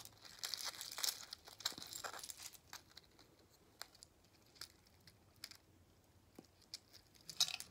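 Light plastic clicks and rustling from handling a 3D-printed facehugger figure while fitting a display stand onto it. A loose scatter of small clicks, thicker in the first couple of seconds, then sparse, with a brief louder clatter near the end.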